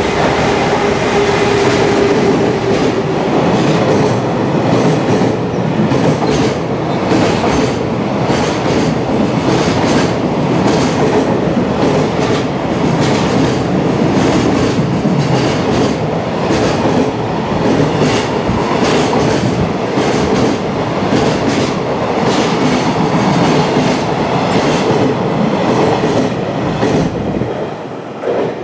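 Long freight train running through a station at speed: a continuous rumble of wheels on rail, with a steady rhythmic clatter of wheel sets over the rail joints. The sound drops away a little before the end as the last wagons pass.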